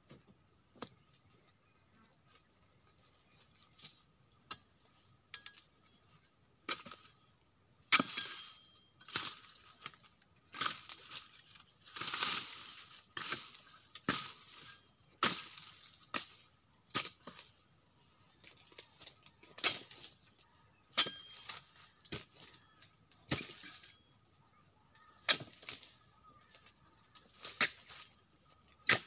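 Long-handled pruning chisel chopping into oil palm frond bases: sharp strikes, irregularly every second or two, starting about eight seconds in. A steady high insect drone runs underneath.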